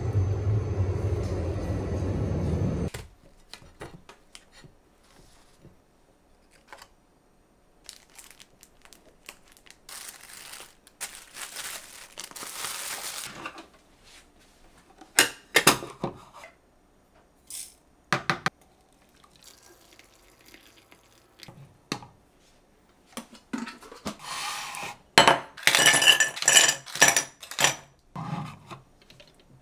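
A steady hum that cuts off about three seconds in, then kitchen handling sounds: scattered clinks of dishes and utensils, with bursts of rustling and a run of clinking near the end.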